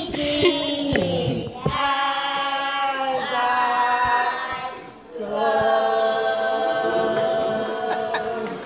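Children's choir singing without accompaniment: a sung phrase, then one long held note lasting about three seconds near the end.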